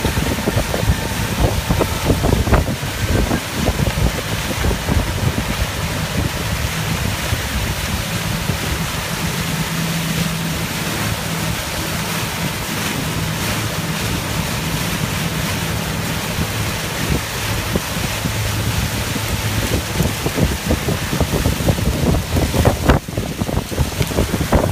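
Motorboat under way at speed: a steady motor hum under the rush of churning wake water, with wind buffeting the microphone.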